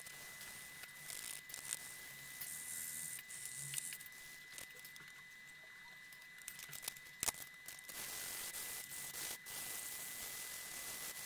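Wet-and-dry abrasive paper wet with mineral spirits scrubbing the rusty steel plate of a hand saw, a scratchy rubbing in quick strokes. It stops for a few seconds in the middle, where a single sharp knock is the loudest sound, then the scrubbing starts again.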